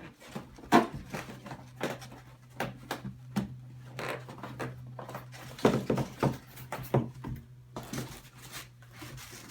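Cardboard packaging being handled: irregular taps, knocks and scraping rustles as an inner box is worked out of a carton, over a steady low hum.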